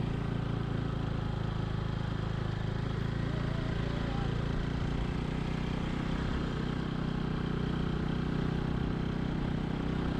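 Motorcycle engine running steadily with an even engine note. The note shifts slightly about halfway through.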